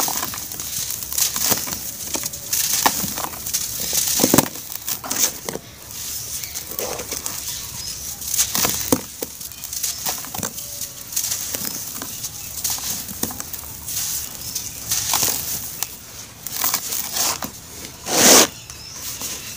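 Hands crushing and crumbling dry gray powdery chunks: a run of irregular crunches and crumbles with a soft hiss of falling powder between them. The loudest crunch comes near the end.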